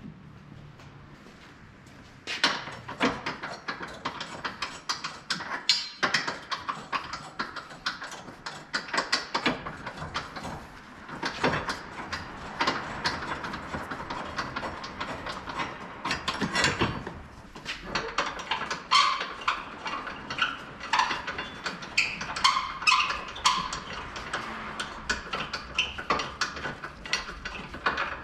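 Irregular clicks, clinks and knocks of hand tools and metal parts being handled, starting about two seconds in, with a few short ringing clinks later on.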